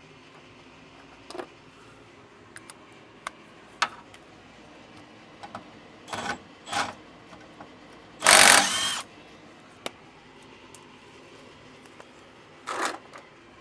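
A ratchet wrench working bolts under a truck, in several short bursts of ratcheting. The bursts come at about 6 s, 7 s, just after 8 s (the longest and loudest, under a second) and near the end. Scattered clicks and knocks of tools and metal fall between them.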